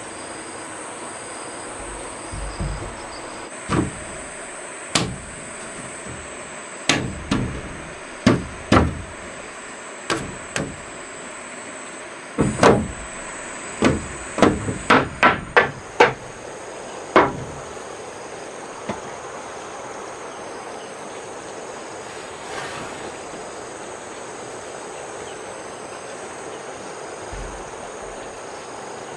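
Hammer nailing wooden wall boards onto a timber frame: about fifteen sharp blows at uneven intervals, with a quicker run of strikes shortly before they stop a little past halfway.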